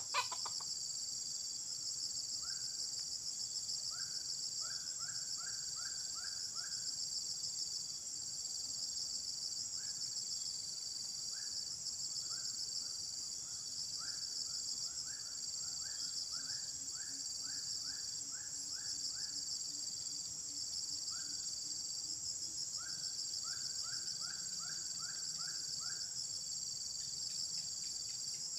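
A steady, high-pitched pulsing chorus of insects throughout. Over it come runs of short repeated bird calls, five to seven quick notes at a time, several times, and there is a sharp knock right at the start.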